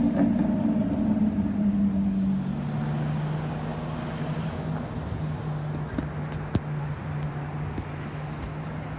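Engines in city traffic; from a little over two seconds in, the steady low note of a Ferrari FF's V12 moving at low revs. Two short clicks come about two-thirds of the way through.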